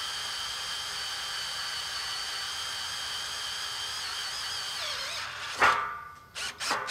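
Power drill with a twist bit boring through a steel angle-iron rail, a steady high whine. About five seconds in the pitch wavers and drops as the bit breaks through, followed by a few sharp metallic knocks.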